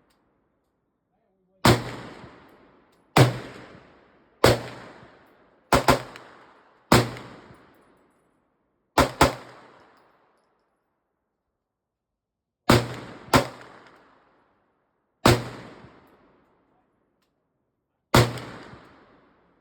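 A firearm fired about a dozen times at an uneven pace, single shots with some quick pairs, each crack trailing off in an echo over about a second.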